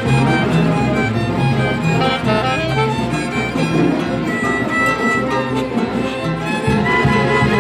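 Andean fiesta band music, violins carrying the melody over a steady, regularly pulsing bass.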